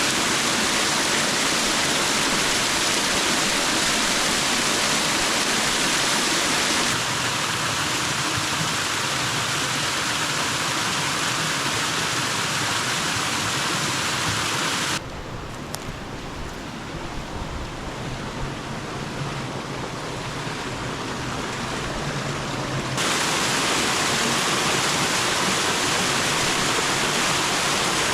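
Small waterfall trickling over rocks: a steady rush of water. The rush steps down abruptly about a quarter of the way in, drops to a quieter, duller sound about halfway through, and comes back up near the end.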